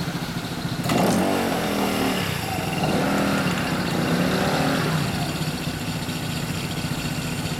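Yamaha Cygnus-X 125 cc single-cylinder scooter with a WindJammers full-titanium exhaust idling. About a second in it is revved sharply, then rises and falls about three times before settling back to idle.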